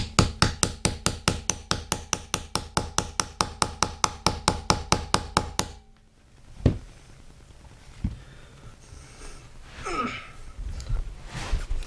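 A hammer pecking lightly and quickly on a screwdriver handle, about five or six taps a second, driving decorative rivets into a wheel. The tapping stops about six seconds in, followed by two single knocks.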